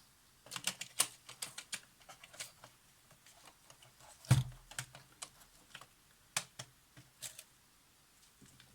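Irregular small clicks and taps of tools and camera parts being handled while fitting a part back onto an instant camera, with one louder knock about four seconds in.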